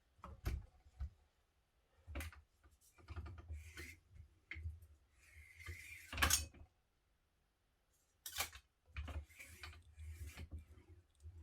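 Scattered knocks, clicks and taps of hand work on a car's centre console and its parts, with a longer scraping rustle about five seconds in.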